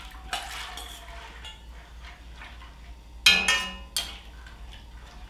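Soaked split peas poured from a stainless steel bowl slide and splash into a pot of water. A little past three seconds in, metal strikes metal with a sharp, ringing clink, followed by a lighter clink just after, as the spoon scrapes out the bowl.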